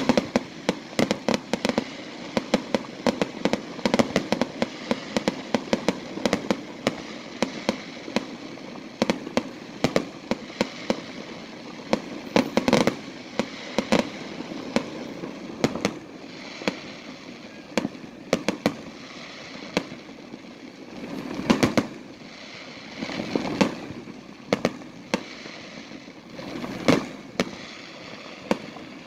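Fireworks going off: many sharp bangs and reports in quick succession over a steady crackle. The bangs come thickly through the first half, thin out, then return in louder clusters near the end.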